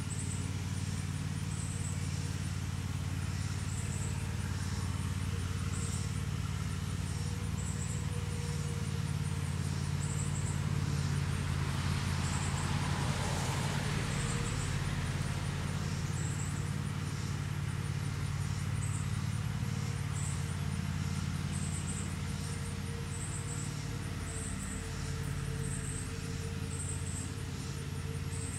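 Outdoor ambience: a steady low hum, with an insect calling in short high chirps every second or two and a vehicle passing about halfway through, its noise swelling and fading.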